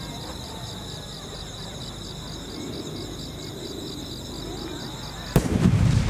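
Crickets chirping in a steady pulsing trill. About five seconds in, a single loud boom from a large aerial firework shell, followed by a rolling low rumble of echo.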